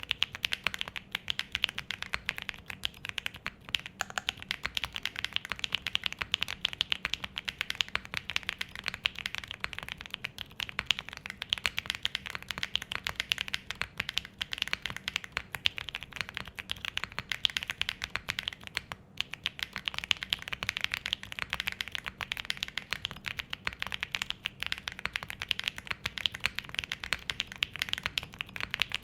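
Steady, fast typing on a Zoom75 mechanical keyboard with Gateron Quinn heavy tactile switches: long-pole switches with a POM stem and nylon housings, on a polycarbonate plate with case foam, non-flex-cut PCB and PBT double-shot keycaps. The keystrokes have a clacky but not too dry sound, and the typing pauses briefly about two-thirds of the way through.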